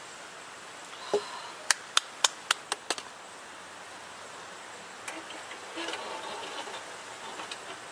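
Camp cooking sounds: about six sharp clicks or taps in quick succession a second or so in, like utensils knocking on cookware, followed by soft clattering.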